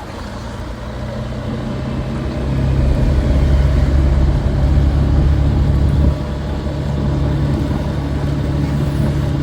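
Street traffic with a motor vehicle's engine running close by. It grows louder about a quarter of the way in and drops back suddenly just past the middle.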